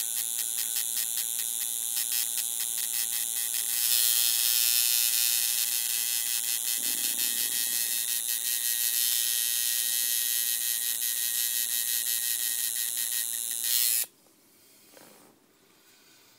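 Coil tattoo machine buzzing steadily while needling grey wash into skin. It gets a little louder about four seconds in and cuts off abruptly about fourteen seconds in.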